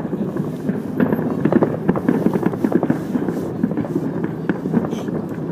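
Distant fireworks: a dense run of short pops and bangs, thickest from about one to three and a half seconds in.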